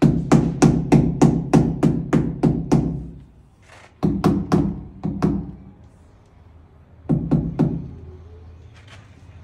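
Mallet tapping ceramic wall tiles to bed them in, in quick runs of dull knocks at about three a second. A run of about ten comes first, then two shorter runs of five and three.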